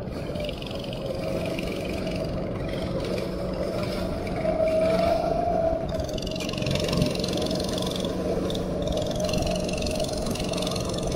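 Go-kart engine running under the driver, its pitch rising and falling as it speeds up and slows through corners on a wet track, over a steady hiss.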